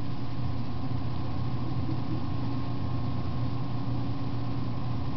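A steady mechanical hum with a constant low drone and a faint higher tone, unchanging throughout.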